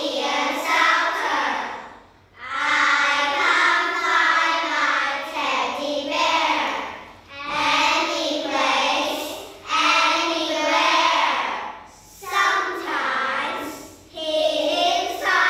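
A group of young children reciting a poem together in unison (choral speaking), in rhythmic phrases of a few seconds separated by brief pauses.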